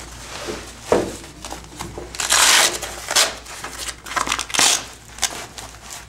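Nylon fabric flaps and webbing of a ballistic vest being handled, giving irregular rustles, scrapes and clicks, with the loudest rasp, about half a second long, a little over two seconds in.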